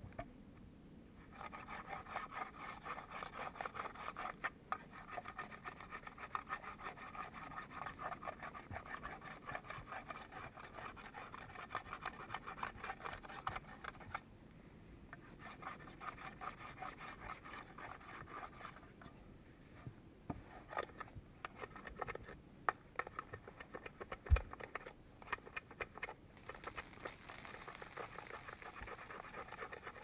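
Hand auger boring into wood: a fast, continuous rasping scrape in long spells, with a short break partway through. A quieter stretch of scattered knocks follows, one of them sharp, before the scraping starts again near the end.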